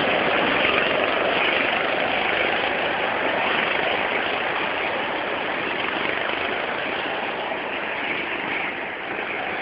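Go-kart engines running: a steady, noisy drone with no clear pitch, slowly getting quieter.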